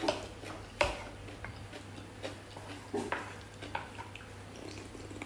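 Cutlery tapping and scraping on plates and bowls with scattered clicks and knocks of eating at a table, the loudest just under a second in, over a low steady hum.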